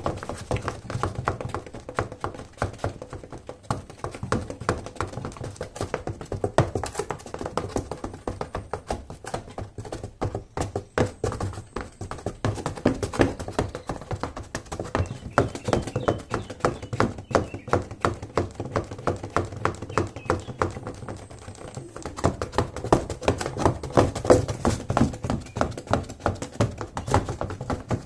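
Silver high-heeled pumps tapping rapidly on the bottom of a cardboard box: a continuous run of sharp taps, several a second.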